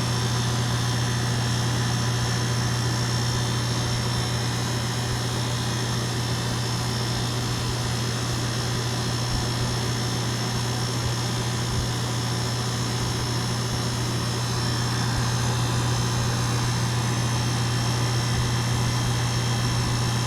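2-ton Goodman heat pump outdoor unit running in cool mode: compressor and condenser fan giving a steady, even low hum that does not change.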